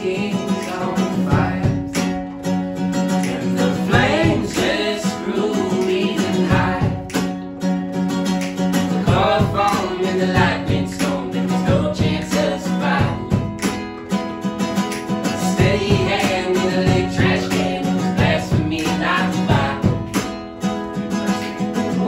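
Live acoustic folk music: two acoustic guitars strummed and picked, with sung vocals over them.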